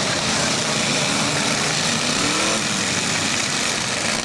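Engines of several demolition derby vehicles running together in a steady, loud din.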